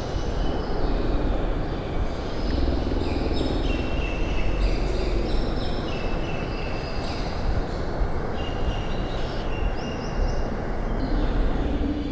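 A steady low rumbling noise with many short, high-pitched chirps over it, stepping between several pitches.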